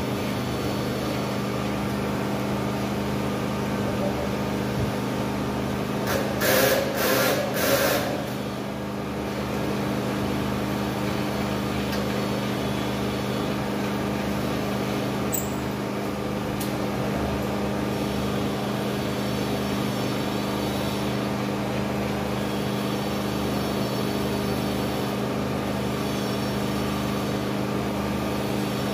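Steady low mechanical hum from a running machine, with a short run of three loud rushing bursts about six to seven and a half seconds in.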